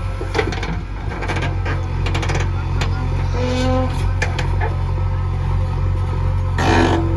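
Heavy-machinery diesel engine running steadily, a little louder from about a second in, with scattered clanks and knocks.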